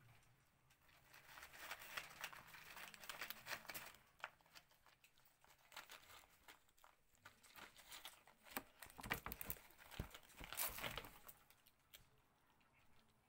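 A kitten and a cat crunching dry kibble from a paper plate: quick, irregular small crunches and crinkly clicks, coming thickest near the end.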